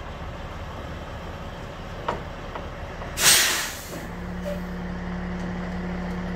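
A semi truck's air system lets out a loud hiss about three seconds in, fading over most of a second, over the low steady rumble of the truck. Just after the hiss a steady low hum starts up and keeps going.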